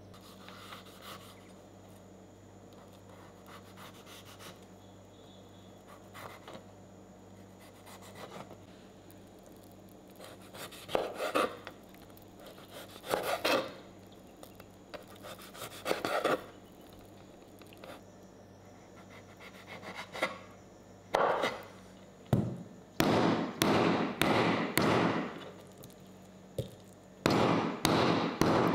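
A kitchen knife cuts and scrapes raw abalone on a wooden cutting board, with a few short bursts after a quiet start. Then a metal meat tenderizer pounds abalone slices on the board in quick runs of strikes, which are the loudest part, through the last several seconds.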